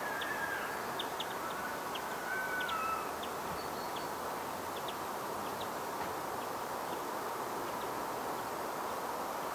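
Small birds calling over a steady background hiss: a few short whistled calls in the first three seconds and scattered brief high chirps throughout.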